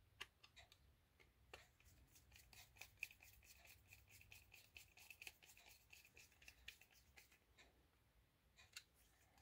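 Small flange-head screw being driven into a plastic toy shell with a precision screwdriver. It gives faint, rapid ticking with a thin high squeak, from about a second and a half in until near the end.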